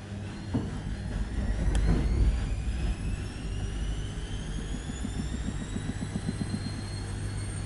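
Washing machine motor speeding up the drum: a whine that rises steadily in pitch over a low hum, with a thud about half a second in and a fast rhythmic pulsing from about halfway through.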